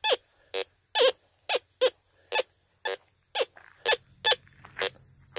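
Technetics Minuteman metal detector giving a string of short, falling beeps, two or three a second, as its coil sweeps back and forth over test targets. With only the nail range notched out, it now signals on the pull tab as well as the coin.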